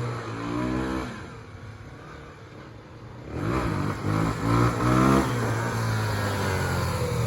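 Small off-road motorcycle engine revving: it climbs in pitch in the first second, falls back, then is blipped up and down several times before settling into a steady run.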